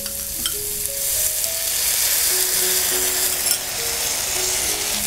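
Chicken and cucumber sizzling in a frying pan as a cornflour and soy sauce slurry goes in, stirred with a wooden spatula; the sizzle swells about a second in. Soft background music with held notes plays underneath.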